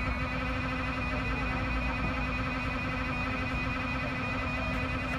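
Subway car interior noise: a steady low rumble with a constant hum, heard from inside the car.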